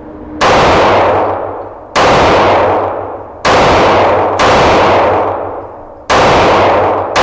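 Springfield Armory XD-E 3.3 9mm handgun firing six shots in slow, steady succession, one every second or so. Each shot is followed by a long echo off the walls of an indoor range.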